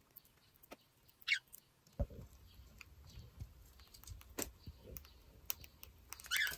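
Cockatiel pecking at seeds: scattered light taps and clicks of its beak at irregular intervals.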